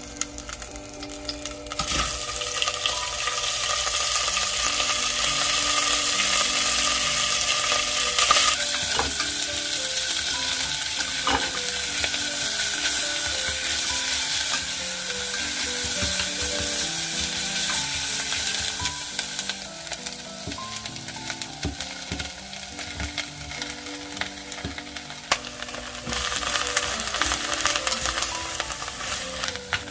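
Cut wakame seaweed, then king oyster mushroom strips, sizzling as they are stir-fried in sesame oil in a stainless steel pot and moved about with a wooden spoon. The sizzle comes up about two seconds in, eases off after the middle and picks up again near the end.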